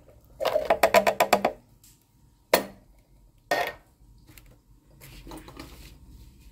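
A quick run of about ten wooden-sounding knocks lasting about a second, then two single sharp knocks a second apart, with faint clatter near the end.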